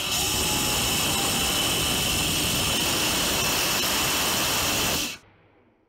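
Small hybrid rocket engine, paraffin wax fuel burning with gaseous oxygen, firing with a loud, steady rushing roar. The sound cuts off suddenly about five seconds in, leaving a faint fading tail.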